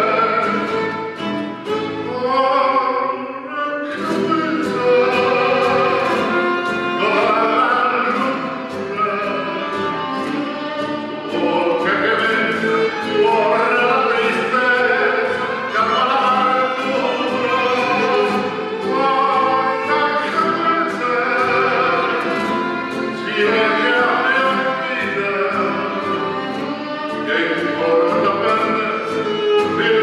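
A man singing a song, accompanied by a violin and an acoustic guitar playing along.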